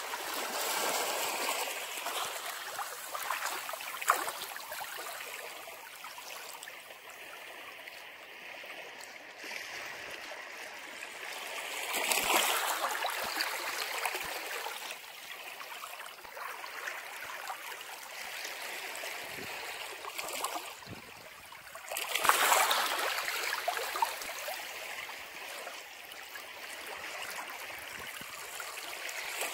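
Sea waves breaking and washing, a steady hiss of moving water that swells into louder surges about every ten seconds, near the start, about twelve seconds in and most strongly about twenty-two seconds in.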